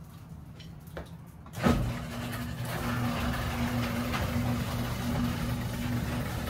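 Electric garage door opener: a clunk as it starts under two seconds in, then its motor running steadily with a repeating drone as the overhead door lowers.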